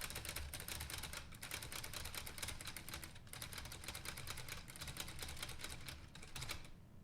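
Typewriter-style carriage being pushed back by hand, its mechanism giving a fast run of ticking clicks that sounds like an actual typewriter. The clicking breaks off briefly twice and stops shortly before the end.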